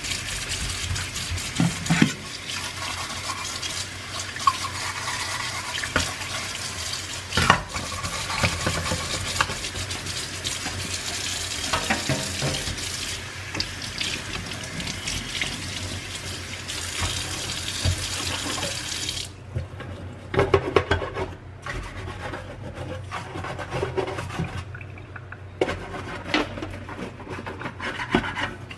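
Kitchen tap running into a stainless steel sink while a long bristle bottle brush is rinsed and rubbed under the stream, with a few sharp knocks. The water shuts off abruptly about two-thirds of the way through, leaving short bursts of scrubbing and splashing.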